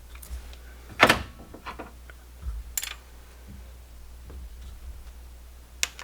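Hand tools clinking against the valvetrain during valve lash adjustment on a 1998 Honda Civic engine: a loud metallic clank about a second in, then a few lighter knocks and sharp clicks, one more near the end.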